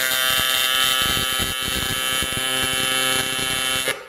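TIG welding arc on aluminum, AC current, buzzing steadily as the filler rod is fed in, then cutting off shortly before the end as the arc is released.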